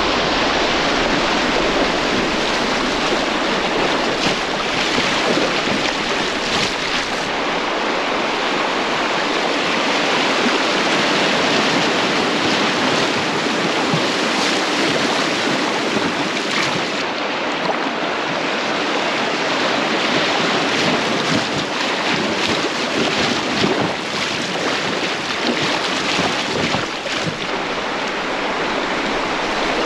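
Steady rush of river water, with wind on the microphone.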